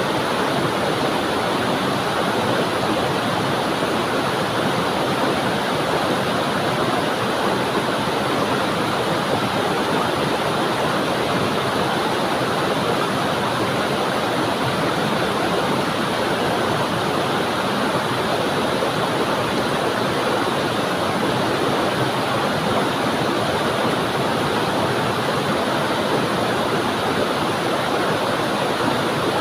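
A waterfall: water falling onto rocks and flowing on, a steady, unbroken rush of noise.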